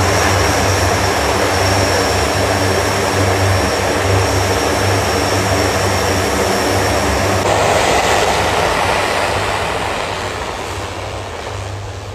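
Four turboprop engines of a Lockheed C-130J Super Hercules running at high power: a deep, steady propeller drone with a thin high turbine whine over it. About seven and a half seconds in the whine drops out, and the sound then fades as the aircraft moves off down the runway for take-off.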